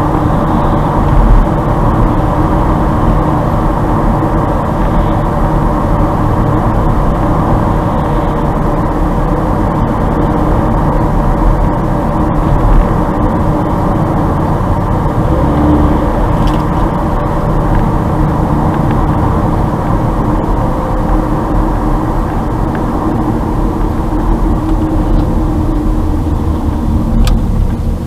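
Steady engine and tyre noise inside the cabin of a car driving at road speed.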